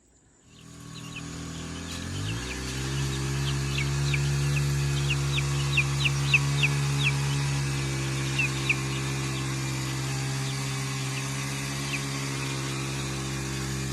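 A motor starts up about two seconds in, its hum rising in pitch and then running steadily, while young chicks peep in short, falling chirps, most often a few seconds into the hum.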